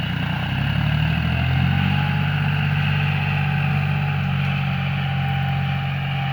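John Deere 5045D tractor's three-cylinder diesel engine running. Its pitch rises a little about a second in, then holds steady.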